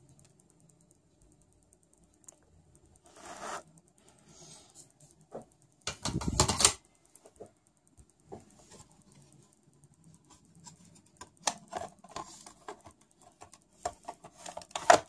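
Handling sounds as a cassette recorder's circuit board and bottom case plate are moved and fitted back together: scattered light clicks and knocks, a short rustling scrape about three seconds in, a louder clatter at about six seconds, then a quick run of small clicks near the end.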